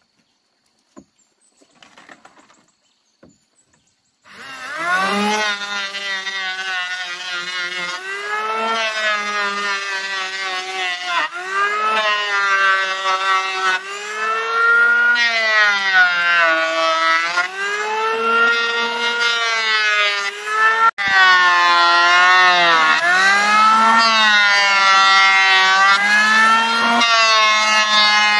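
Electric hand planer starting about four seconds in and running over wooden boards. Its whine sags in pitch each time the blades bite into a pass and recovers as the load comes off, and it grows louder in the second half.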